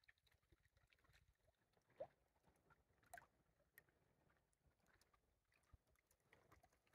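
Near silence: faint outdoor quiet with a few soft scattered ticks and one brief rising squeak about two seconds in.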